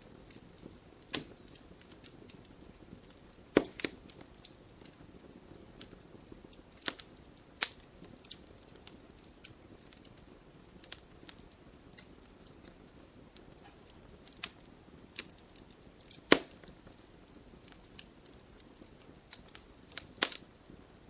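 Wood fire crackling in a fireplace: irregular sharp pops and snaps over a soft steady hiss of burning, with a few louder cracks, the loudest about two-thirds of the way through.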